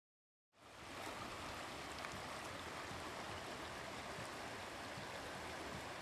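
Shallow river water running steadily over rocks, starting suddenly about half a second in.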